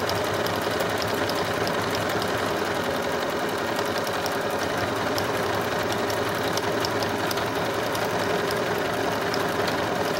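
Janome DC 4030 computerised sewing machine running steadily as it stitches an automatic buttonhole with the buttonhole foot, a continuous motor hum with rapid fine ticking of the needle mechanism.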